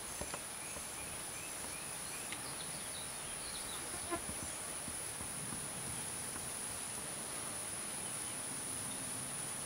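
Steady high-pitched insect drone from a summer evening's insects, with a few faint short chirps in the first few seconds. A few light clicks, the loudest about four seconds in.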